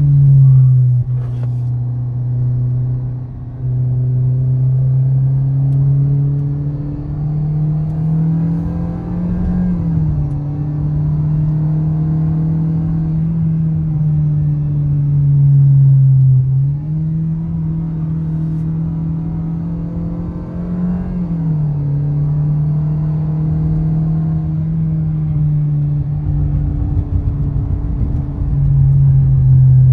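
Toyota Vios's four-cylinder engine pulling steadily on a drive, its note climbing slowly and dropping back several times, with road rumble underneath.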